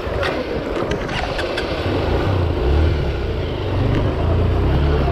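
Honda CRF150L's single-cylinder four-stroke engine running as the bike wades through a shallow rocky river, with water rushing around the wheels. The engine note strengthens about two seconds in, and a few sharp knocks come in the first two seconds.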